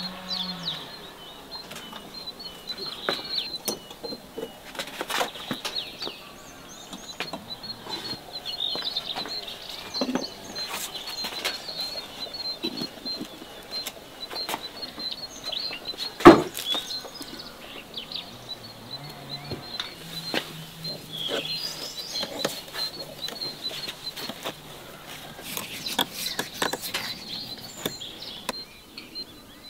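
Scattered knocks, scrapes and crumbling as a baked clay shell, reinforced with sticks and wire, is cracked and pulled apart by hand, with one sharp, much louder knock about halfway through. Birds chirp throughout.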